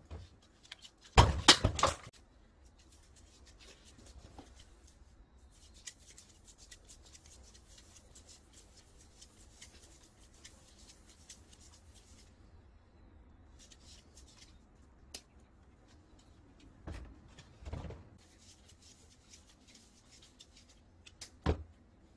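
Brass plumbing fittings being handled: a loud clatter of metal parts about a second in, then faint crackling as thread seal tape is wrapped around the fitting threads, and a few softer knocks as parts are set down near the end.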